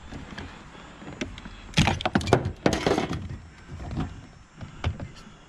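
A quick cluster of loud knocks and clatter about two seconds in, then one more knock near the end: a scrap item being handled and struck as it is taken apart.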